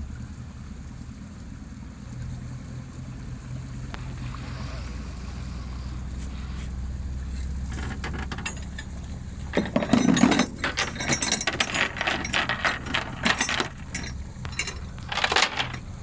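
Low, steady hum of a boat's outboard engine running. From about halfway through, a rapid run of sharp metallic clicks and clinks, the loudest sound, comes and goes.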